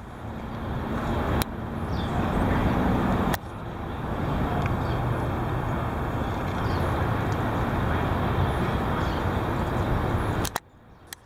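Strong wind gusting outdoors and buffeting the microphone as a steady, heavy rumble and rush. The level steps abruptly about a second and a half in and again around three and a half seconds, then cuts off suddenly near the end.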